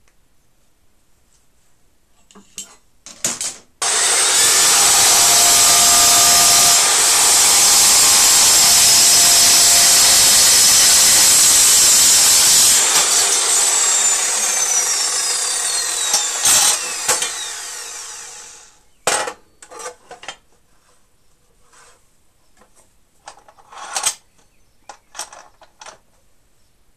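Electric chop saw started and cutting through aluminium alloy plate with a loud, even cutting noise for about nine seconds, then switched off, its motor whine falling as the blade spins down. A few knocks and clicks of handling follow.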